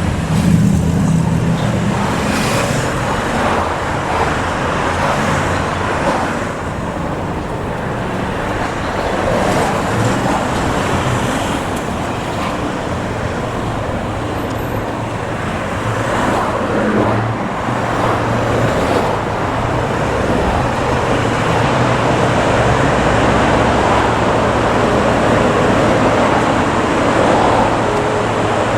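Road traffic noise: vehicle engines and tyres running steadily, with no siren sounding.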